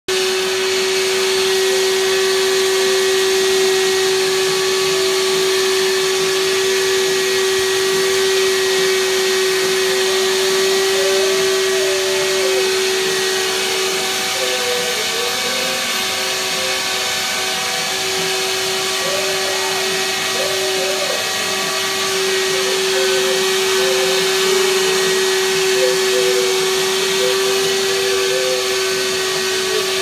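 Vacuum cleaner running steadily with a strong constant hum, its hose nozzle being run through a long-haired German Shepherd's thick coat. From about ten seconds in, a wavering higher tone comes and goes over the hum.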